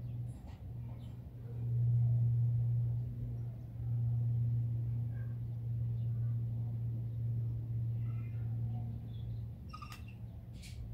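A steady low motor hum that swells and dips in level, with faint bird chirps over it and two sharp clicks near the end.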